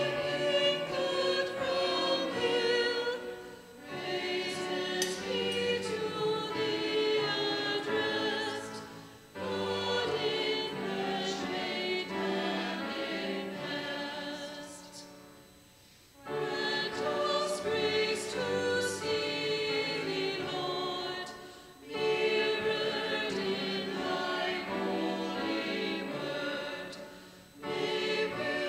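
Choir singing an offertory hymn in phrases about six seconds long, with brief pauses between them.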